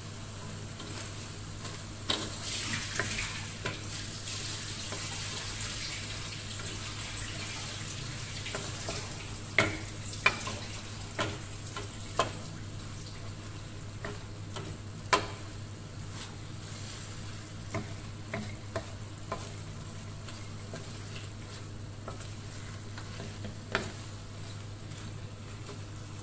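String beans and chicken sizzling in a wok as a wooden spatula stirs and turns them, with sharp knocks of the spatula against the pan, the loudest about ten and fifteen seconds in. A steady hum runs underneath.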